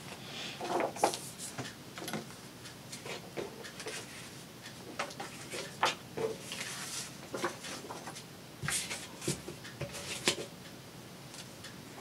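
Paper and craft materials being handled on a work table: scattered rustles, light taps and small clicks.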